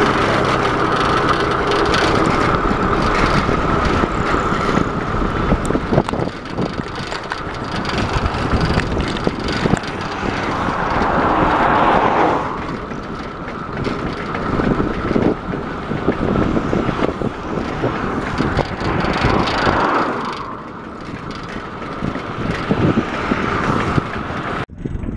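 Steady road and wind noise from a bicycle riding along a tarmac highway. An oncoming pickup truck passes, swelling and then dropping off sharply about twelve seconds in, and a smaller swell from another passing vehicle follows about twenty seconds in.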